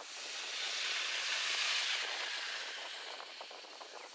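Boeing 737-800's CFM56 jet engines at taxi power, heard as a rushing hiss that swells over about the first two seconds and then slowly fades as the aircraft turns past.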